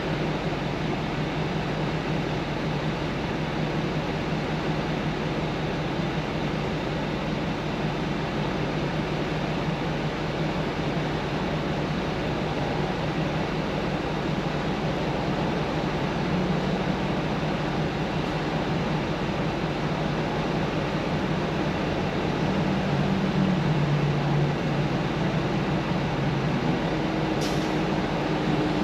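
Steady cabin noise of a vehicle on the move: road and engine noise heard from inside the car.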